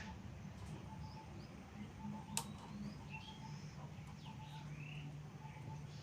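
Table fan motor running with a steady low hum, turning freely on its newly replaced bushes. Birds chirp now and then over it, and there is one sharp click a little over two seconds in.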